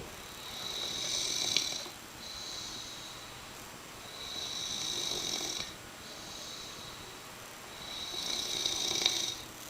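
A person snoring: three loud snores with a high, hissing whistle, about four seconds apart, and softer breaths between them. The first and last loud snores each end in a sharp click.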